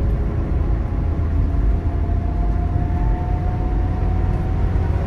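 Car cruising on a motorway, heard from inside the cabin: a steady low rumble of road and engine noise with tyre hiss.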